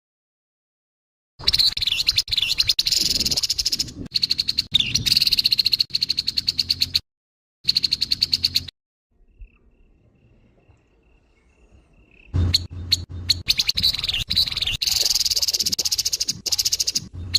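Grey-headed babbler giving harsh, rapid rattling calls in long bursts. A quiet pause of a few seconds falls in the middle before the rattling resumes.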